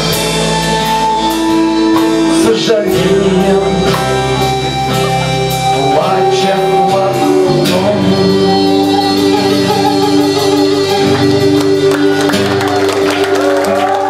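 Live band playing: a violin holding long notes over strummed acoustic guitar and drums, with a singing voice.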